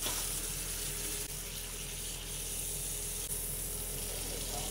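Beef rump roast searing in hot oil in a cast-iron skillet: a steady sizzle as the meat is turned over.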